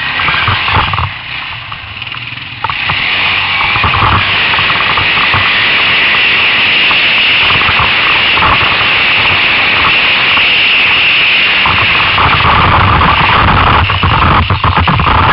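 Loud, steady rush of wind buffeting and quad engine noise picked up by a camera riding on an ATV over rough dirt and grass, dipping for a moment about two seconds in. Near the end the noise breaks up with a few knocks.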